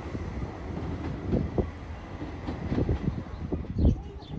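Class 158 diesel multiple unit running as it draws in along the platform: a steady low rumble, broken by several low thumps of wind on the microphone.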